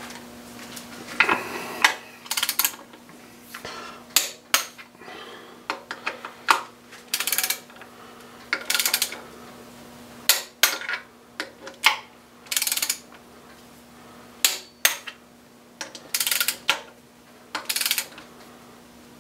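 Torque wrench ratcheting in short bursts, with sharp metallic clicks, as the oil pump's bolts are tightened down to the set torque. The bursts come about a dozen times, with short pauses between.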